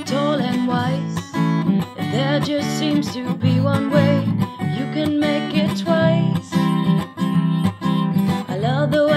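A woman singing over a strummed acoustic guitar, a Fender, in a steady chord rhythm.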